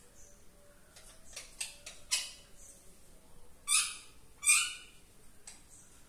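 Caged green parakeet calling: a few short, sharp chirps, then two loud, harsh screeches about a second apart.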